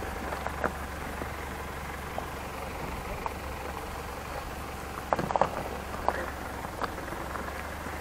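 Low, steady engine rumble of a Mitsubishi Pajero crawling down a rocky track, with loose stones crackling and clicking under its all-terrain tyres. A short cluster of sharper clicks comes about five seconds in.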